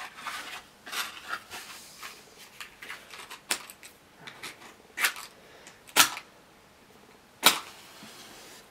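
A match struck against the side of a matchbox several times: four loud, sharp scrapes in the second half, the last one catching and flaring. Before them come softer clicks and rattles as the matchbox is handled.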